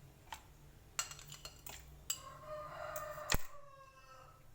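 Kitchenware clinking and knocking as ingredients go into a cooking pot: a few scattered clicks, the loudest a single sharp knock a little past three seconds in. A drawn-out animal call, just over a second long, sounds in the background from about two seconds in.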